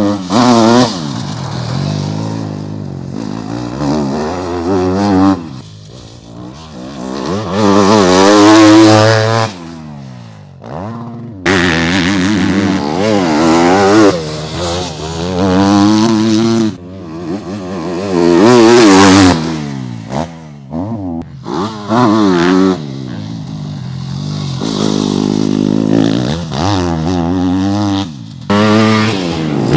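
Yamaha YZ250F four-stroke single-cylinder motocross bikes revving hard through the gears as they ride past, the engine pitch climbing and dropping over and over across several passes.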